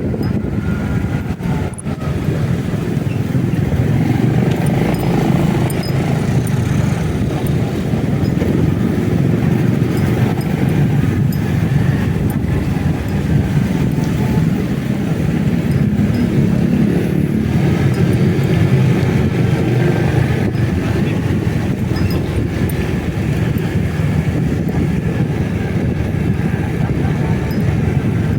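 Motorcycle running on the move, its engine note rising and falling a little, over a steady rush of road and wind noise.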